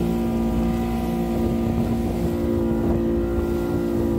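Outboard motor of a small wooden fishing boat running steadily at cruising speed, a constant drone with the rush of wind and water as the hull cuts through the sea.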